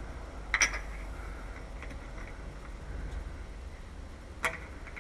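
Two sharp metal clicks, about half a second in and again near the end, over a steady low rumble, as a lock body is handled and test-fitted into an aluminium door's lock pocket.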